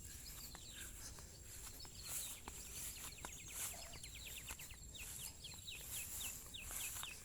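Bird calling outdoors: scattered short chirps, then from about five seconds in a rapid series of quick downward-sliding chirps, about three a second. A few sharp clicks and a low rumbling background sit under it.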